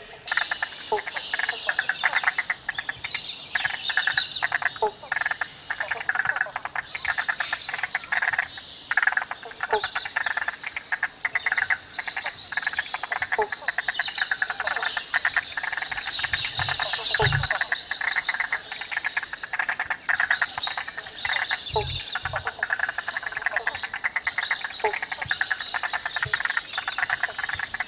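A dense chorus of many frogs calling at the lagoon, a steady mass of rapid pulsing trills, with a shorter, lower note repeating every second or two. A few low bumps come in the middle.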